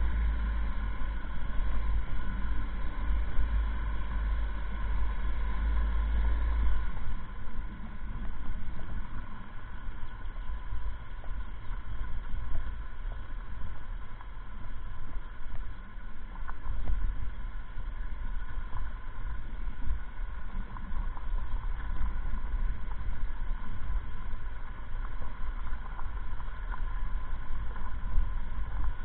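Motorcycle running steadily along a dirt track, its engine mixed with heavy wind rumble on the microphone. The rumble is strongest for the first several seconds.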